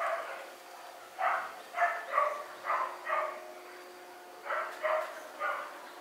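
A dog barking, about nine short barks in irregular groups, over a faint steady hum.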